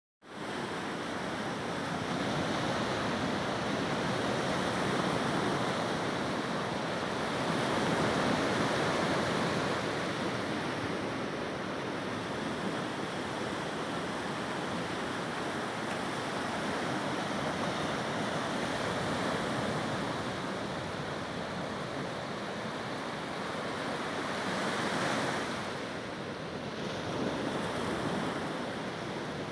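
Surf washing onto a beach, a steady rush of noise that swells about eight seconds in and again near twenty-five seconds.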